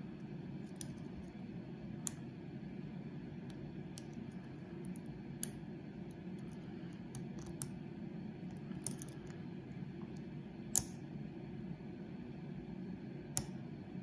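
Small, sharp metallic clicks, scattered a second or more apart, as a hook pick under a tension wrench works the pin tumblers of a large Ace padlock. A steady low hum runs underneath.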